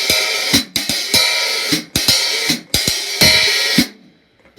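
Pair of 15-inch K Zildjian Istanbul hi-hats, an old-stamp top over a new-stamp bottom, played in a steady rhythm: a bright washy open sizzle cut short by a closing chick about twice a second. They stop shortly before the end.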